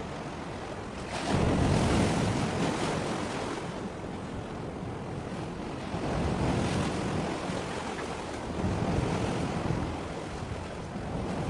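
Sea waves washing against the shore, with wind buffeting the microphone. The noise swells in surges about a second in, again around six seconds, and around nine seconds.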